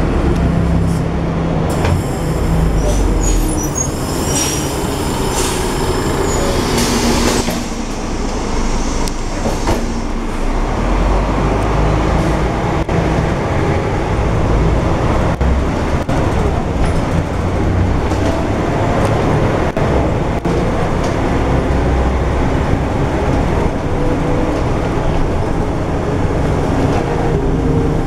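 Volvo B12M articulated bus running: the diesel engine rumbles under a steady wash of road and body noise. There is a short burst of air hiss about seven seconds in, then the bus carries on under way.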